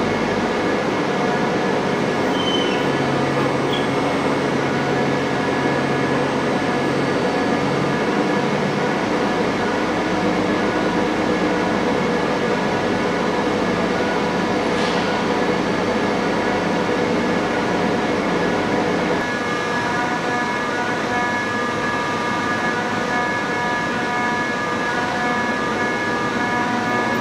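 Schiess PBC130 CNC table-type boring and milling machine running: a steady mechanical hum with several held whining tones from its spindle drive and axes, shifting slightly about two-thirds of the way through.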